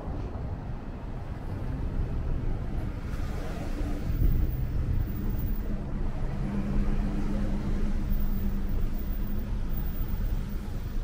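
Street traffic: cars running along a busy avenue, with a steady engine hum that comes in about halfway through and holds for several seconds.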